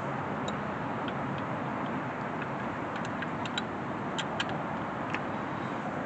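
Steady wind noise on the microphone, with scattered light metallic clicks and ticks from hand work in the engine bay as the drive belt is fitted, most of them bunched together a little past the middle.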